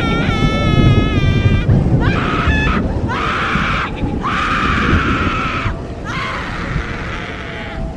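A series of long, high-pitched screams, one after another with short breaks, turning rougher and hoarser in the second half, over a steady low rumble.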